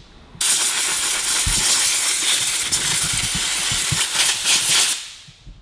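Compressed-air blow gun hissing steadily, blowing carburetor cleaner off a freshly cleaned brake master cylinder part. It starts about half a second in and tails off near the end.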